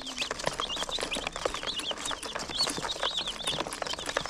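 A brood of day-old broiler chicks peeping nonstop, many short high chirps overlapping several times a second, over a patter of small taps and clicks. The keeper takes their restlessness for hunger and thirst.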